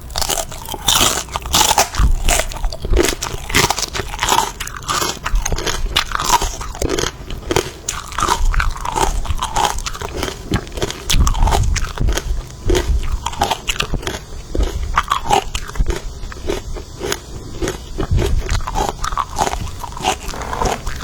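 Crisp bites and crunchy chewing of a fresh raw green pepper: a dense, continuous run of sharp cracks and crunches, with a few heavier bites along the way.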